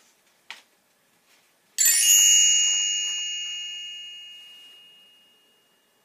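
A single bright bell chime, struck once about two seconds in and ringing on with several tones as it fades away over about four seconds: the read-along's turn-the-page signal.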